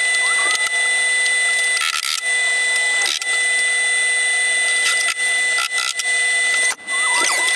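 A steady mechanical drone with several constant high whining tones, like a workshop machine running, with a few knocks and clunks as plywood panels are handled on the bench.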